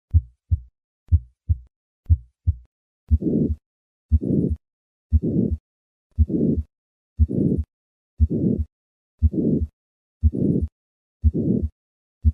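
Heartbeat of a patient with hypertrophic cardiomyopathy, about one beat a second. The first three beats are normal, two short sounds each. From about three seconds in, a harsh systolic murmur fills the gap between the first and second sound of every beat.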